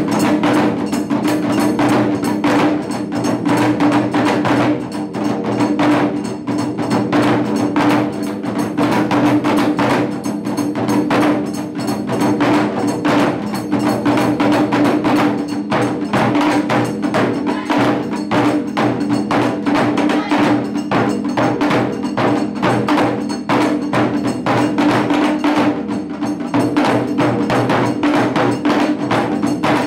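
Japanese taiko ensemble drumming: rapid, continuous strikes on large barrel drums and smaller drums, with sharp clicking hits, over a steady low hum.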